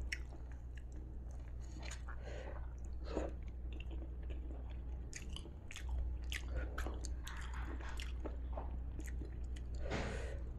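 Close-up chewing with sharp crunches, a person eating crispy flour-battered fried tempe gembus by hand, over a low steady hum.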